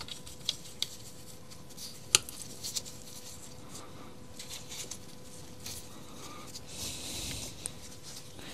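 Light clicks and taps of small parts being handled as carbon brushes are fitted into the motor brush holders in the plastic housing of a Makita UC3541A electric chainsaw. The sharpest click comes about two seconds in, with a short rustle near the end.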